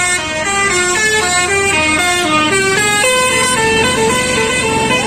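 Basuri telolet bus horn playing a tune: several horn tones sounding together and stepping up and down through a quick melody of short notes.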